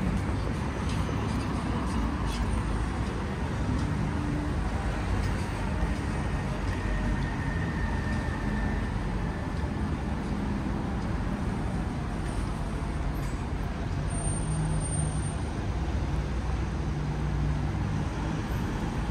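Steady city street traffic: cars and buses passing, a continuous low rumble of engines and tyres.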